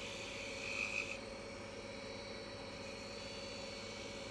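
Steady hum and whine of shop machinery running, with a brief higher tone about a second in.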